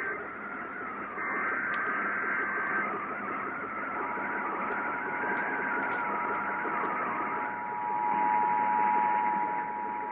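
Emergency Alert System test received over a static-filled radio, with a wavering whistle under the hiss. A short burst of header data tones comes first, then about four seconds in the EAS two-tone attention signal starts and holds steady.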